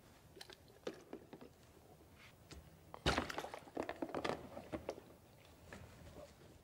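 Light plastic clicks and knocks as the yellow gates of an AquaPlay toy water lock are lifted out and slotted back into place, with the loudest knock about three seconds in and a quick run of smaller ones after it.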